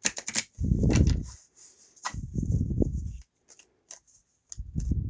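Tarot cards being riffle-shuffled: a fast run of crisp flicking clicks as the halves riffle together, then dull bumps and rubbing as the deck is handled and squared, three times.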